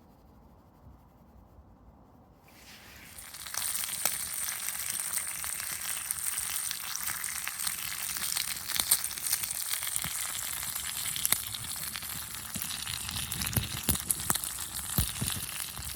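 Bacon sizzling on a roof tile over a campfire, starting about three seconds in after a quiet opening, a steady hiss full of small crackles with a few sharper pops.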